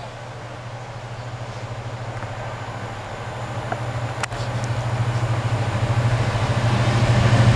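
Train approaching on the main line, its low running hum growing steadily louder, with a single sharp click about four seconds in.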